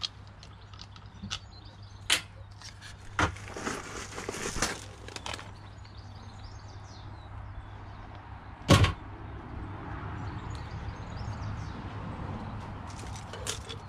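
Scattered clicks and knocks of a plastic gas filler housing and tools being handled, with one loud knock about nine seconds in, over a low steady hum.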